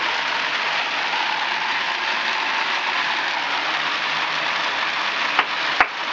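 Steady, even rushing hiss of fake snow being sprayed, with several sharp clicks starting a little after five seconds in.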